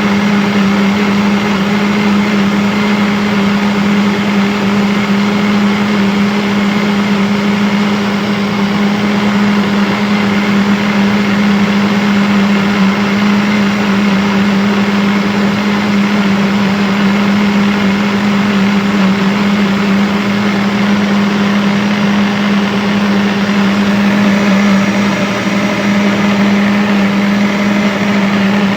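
Electric blender running at a constant speed: a steady motor hum over a dense whirring rush, with no change in pitch or level.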